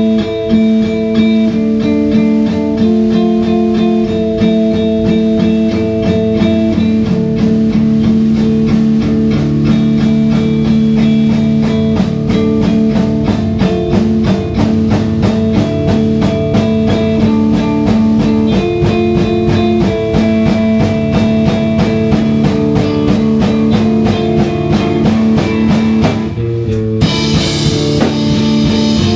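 Instrumental rock played live by a band on electric guitar, bass guitar and drum kit, with sustained guitar notes over a steady beat. Near the end the band breaks briefly and comes back in harder, with crashing cymbals.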